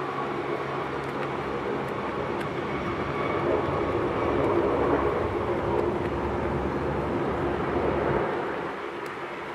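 Jet engines of a narrow-body twin-engine airliner on final approach to land: a steady whine over a rumble. It grows louder toward the middle and falls away near the end.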